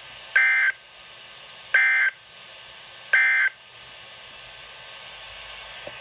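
NOAA Weather Radio SAME digital data bursts through a Midland weather radio's speaker: three short, shrill buzzy bursts about a second and a half apart, the End of Message code that closes the weekly test broadcast. A steady radio hiss runs between them.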